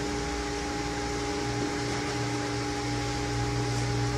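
Steady mechanical hum of shop machinery or ventilation, several steady tones over an even hiss, with no distinct knocks or tool strikes.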